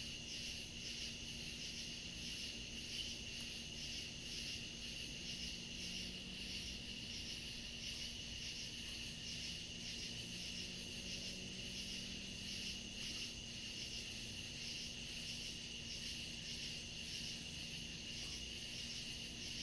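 Night chorus of crickets and other insects: rapid, evenly pulsing chirps over a steady high trill, with a faint low steady hum underneath.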